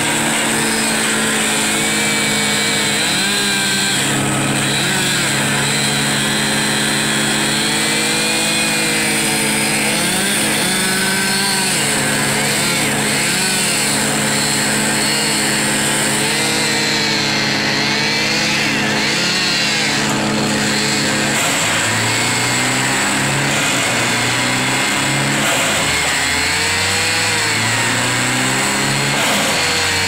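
Gas chainsaw running near full throttle as it cuts through a pine trunk, its pitch wavering as the chain bites into the wood. About two-thirds of the way in, the engine speed starts rising and falling over and over.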